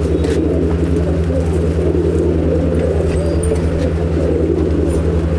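Pigeons cooing in a loft over a steady, low mechanical hum with an even pulse.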